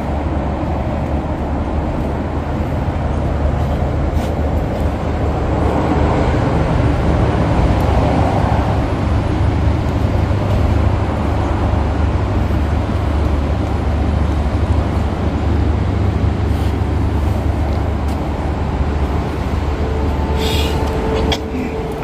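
A car driving: a steady low rumble of road and engine noise, a little louder from about six to nine seconds in.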